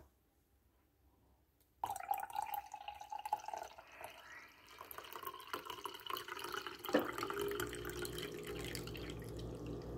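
Hot coffee poured from a carafe into a ceramic mug of milk, starting suddenly about two seconds in: a steady splashing liquid stream that foams the milk as the mug fills. A brief knock sounds about seven seconds in.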